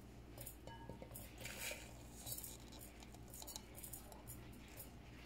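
Ground coffee poured into the glass upper bowl of a Hario NCA-5 siphon coffee maker: several short, soft rustling hisses, with a few faint clinks against the glass near the start.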